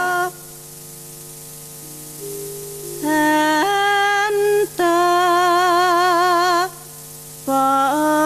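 Music: a melody of long held notes with a wavering vibrato and small pitch slides, in three phrases broken by short gaps, over quieter steady held accompaniment notes and a constant low hum.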